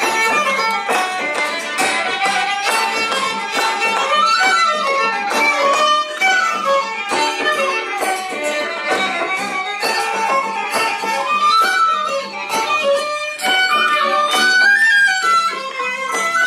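Traditional Irish jig played live by fiddle, whistle, acoustic guitar and bodhrán. The fiddle carries the melody over strummed guitar chords and a regular frame-drum beat.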